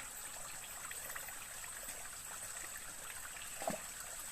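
Steady rushing like running water, with one short, sharp sound about three and a half seconds in.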